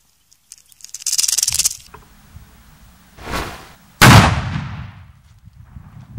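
A fuse hisses briefly, then a tape-wrapped "Kinder Surprise" firecracker goes off with a single sharp bang about four seconds in, dying away over about a second.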